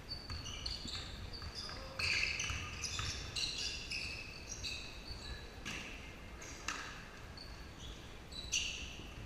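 Basketball game on a hardwood gym floor: sneakers squeak in many short, high chirps and the ball bounces, with a few sharp thuds. The sounds echo in the large gym.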